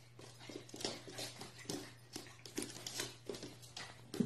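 Faint, irregular taps and light scrapes, a few a second, from a puppy's paws and claws on a hardwood floor as it paws at a tennis ball.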